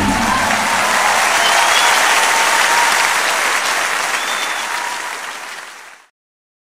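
Audience applauding after the music ends, dying away near the end.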